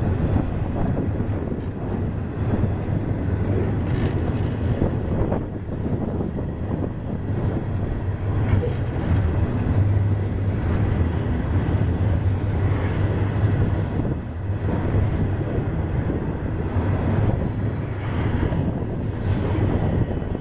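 Freight train of flatcars loaded with steel coils rolling past: a steady rumble of steel wheels on the rails, with a click now and then.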